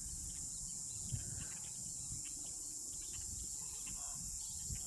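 Insects trilling steadily outdoors, a continuous high-pitched drone, over a low rumble.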